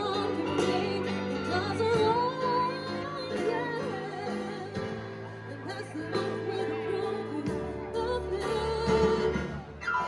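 A woman singing a slow, melodic song into a microphone with a live band accompanying her on drums and other instruments.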